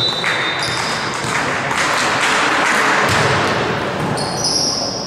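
Sneakers squeaking on a hardwood volleyball court in short, high squeals, starting about four seconds in, over a steady hiss of hall noise.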